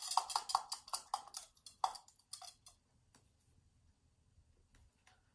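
Light clicks and taps of paintbrushes being handled, the handles knocking against each other and the wooden paint box as a smaller brush is picked out. There are about a dozen quick clicks over the first three seconds, then only a couple of faint ticks.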